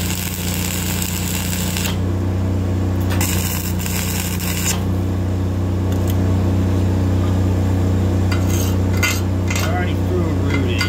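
Self-shielded flux-cored arc welding with Innershield NR-233 wire: the arc crackles and hisses for about two seconds, stops, then burns again briefly before going quiet around the middle. A steady engine drone runs underneath, and sharp metallic ticks and clinks come near the end.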